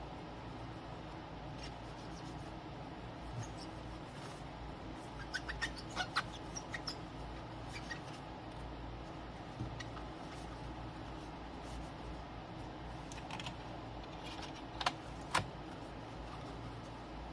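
Light ticks and taps of small objects being handled on a workbench over a steady low background hum, with a quick cluster of clicks about a third of the way in and two sharper clicks near the end.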